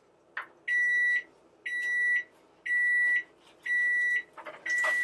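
A kitchen appliance's electronic beeper sounds five even, high-pitched beeps, about one a second and each just over half a second long, after a short click.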